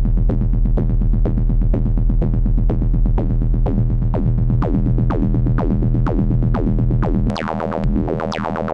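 Output of a Make Noise QPAS analog stereo multimode filter: a steady low synth drone with a rapid string of sharp, falling resonant zaps, several a second, from clock or gate signals patched into the filter's '!!ii' inputs. Near the end the lowest part of the drone drops away and the zaps turn brighter.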